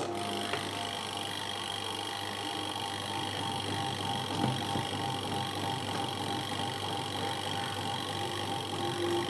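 Twin-tub washing machine's spin-dryer motor, just repaired after spinning weakly, switched on with a load of clothes. It runs with a steady hum: a low drone and a faint high whine.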